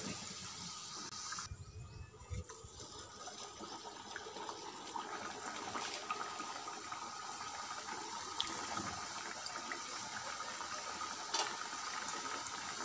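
Kachoris deep-frying in hot oil in a kadhai: a steady sizzling and bubbling of the oil, with a couple of short clicks.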